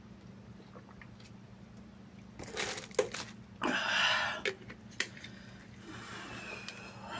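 A man breathes out hard through an open mouth in a long breathy "haaa", then blows air out through pursed lips: he is cooling his mouth from the heat of spicy chicken biryani. A few short clicks and rustles come just before.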